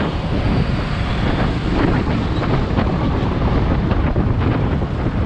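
Wind buffeting the microphone of a camera on a moving bicycle, a loud continuous rumbling rush, with road traffic and nearby motorbikes underneath.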